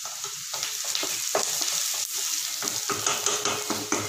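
Chopped onions sizzling in hot oil in a non-stick kadai, stirred with a wooden spatula that scrapes and taps against the pan many times.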